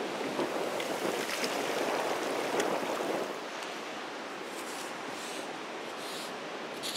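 Surf washing on a beach, one swell of rushing water building and falling away in the first few seconds. In the second half come several short, scratchy scrapes of a driftwood stick dragged through wet sand.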